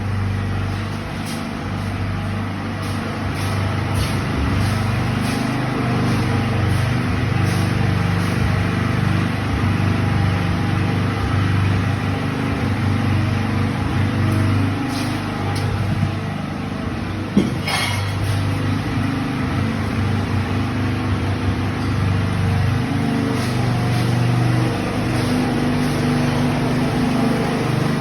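An engine running steadily with a low hum, with one sharp click about two-thirds of the way through.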